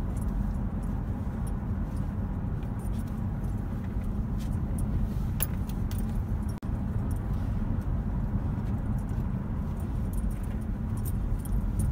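Steady low road and engine rumble heard inside a moving car's cabin, with light scattered rattling and jingling clicks. The sound cuts out for an instant about halfway through.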